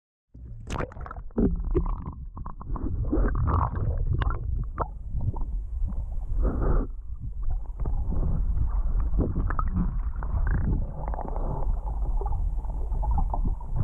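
Muffled low rumble of water sloshing and gurgling around a camera held underwater, with scattered knocks and bumps against it. It cuts in suddenly just after the start.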